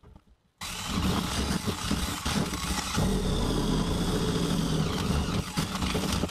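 Yellow DeWalt cordless drill starting about half a second in and running steadily, its spinning attachment scouring rust off an old steel axe head, then stopping abruptly at the end.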